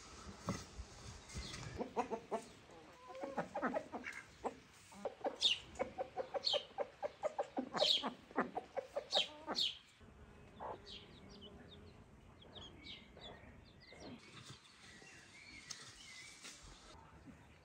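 Chickens clucking in a quick repeated run, with four short high calls among the clucks. After about ten seconds it goes quieter, leaving only faint high chirps.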